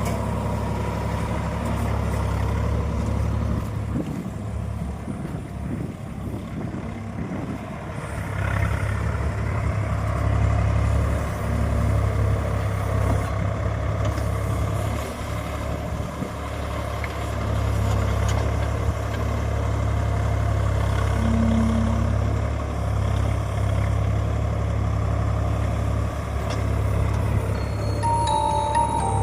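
Swaraj 855 FE tractor's diesel engine running steadily, its level rising and falling as it works. A brief high-pitched tone sounds near the end.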